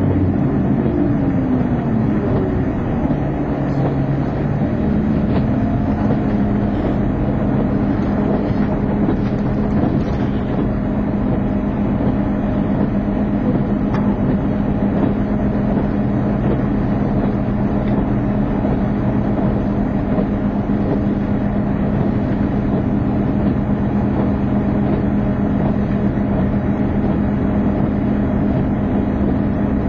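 Diesel limited express train running, heard from inside the passenger car. The engine tones fall in pitch over the first few seconds, then settle into a steady hum over the constant rumble of the wheels on the rails.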